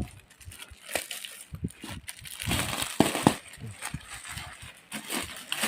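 Plastic parcel packaging being handled and torn open: irregular crinkling, rustling and clicking, busiest about halfway through.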